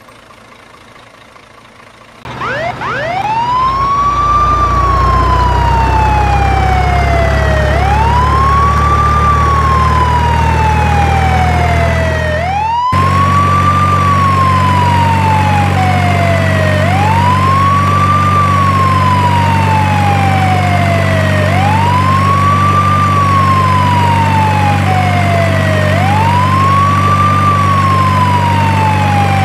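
A siren wailing: each cycle rises quickly, then falls slowly, repeating about every four and a half seconds. Under it runs a steady low engine drone, which changes abruptly about thirteen seconds in.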